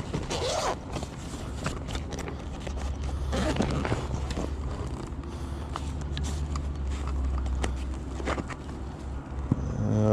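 Rummaging through a box of stored belongings: scattered rustling, scraping and small knocks as things are moved and handled, over a steady low hum.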